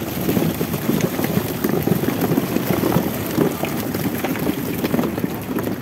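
Water splashing and sloshing, with wind buffeting the microphone.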